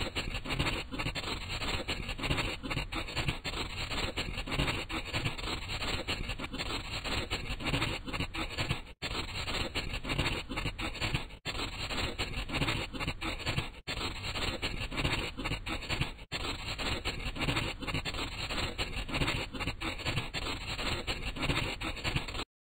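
Coloring strokes on paper: a tip scratching and rubbing in quick back-and-forth strokes, with a few brief sudden breaks.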